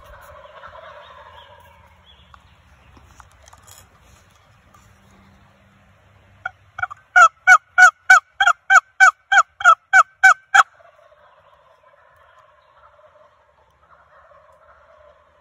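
Wild turkey gobbling faintly in the distance, then a loud, close run of about fourteen sharp turkey yelps over four seconds, about three a second, followed by more faint distant gobbling.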